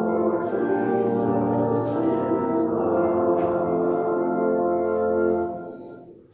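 The closing bars of a church hymn: full sustained chords held and then fading out about five and a half seconds in.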